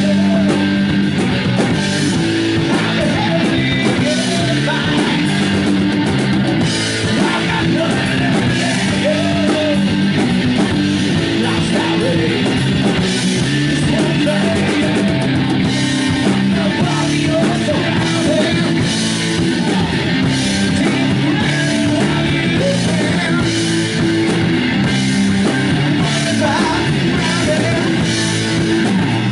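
Live rock band playing: electric guitars, electric bass and drum kit, loud and steady throughout.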